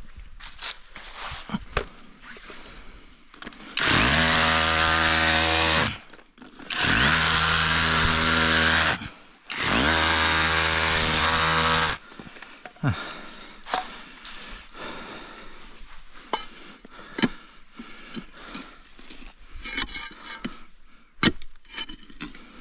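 Hand-held power tool run in three bursts of about two seconds each, its motor starting and stopping, followed by small scattered knocks and scraping.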